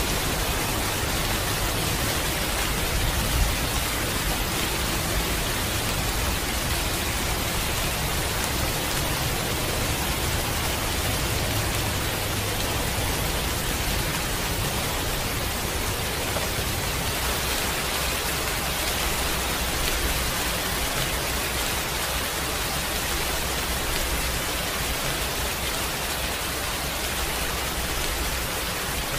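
Heavy rain falling steadily, an even, unbroken wash of sound with no single drops or breaks standing out.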